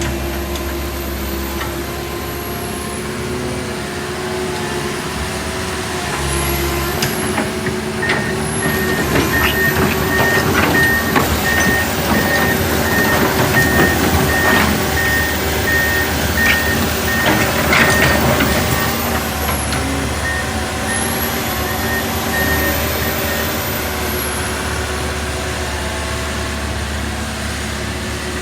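A backhoe's diesel engine runs steadily under load. From about eight seconds in, a repeated warning beep sounds and stops a few seconds before the end. Clanking and knocking come through in the middle.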